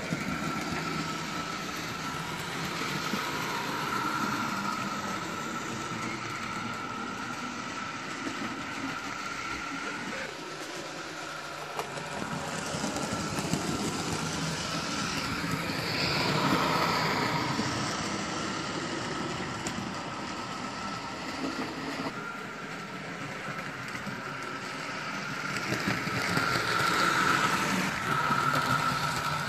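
Hornby A4 Pacific model locomotive running laps of the layout with its coaches: a steady electric motor whine over the rattle of wheels on the track. It swells louder three times as the train passes close, most strongly about halfway through and near the end.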